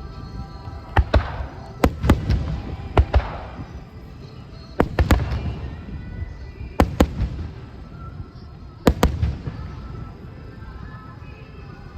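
Aerial fireworks shells bursting: a string of sharp bangs, mostly in quick pairs, each trailed by a fading crackle. The bangs thin out and stop about three quarters of the way through.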